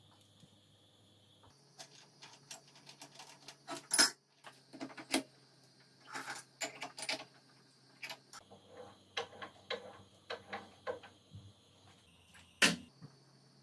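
Metal tools being handled on a milling machine table: a string of light clicks, taps and clinks, with two sharp metallic clanks, one about four seconds in and one near the end.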